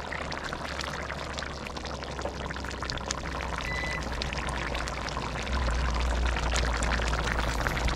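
Chicken curry simmering in a wide metal pan on a portable gas stove: the thick sauce bubbles and pops in many small ticks, over a steady low rumble that grows louder about five and a half seconds in.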